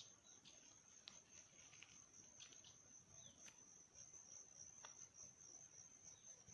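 Faint, steady, high-pitched insect trill with no break, cricket-like, with a few faint scattered chirps and ticks over it.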